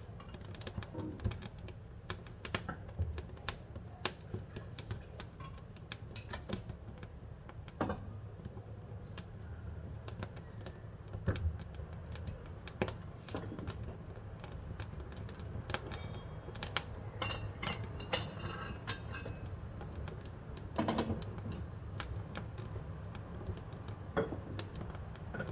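Wood fire crackling and popping in the firebox of a wood-burning cookstove: irregular sharp snaps over a steady low rumble of the burning fire.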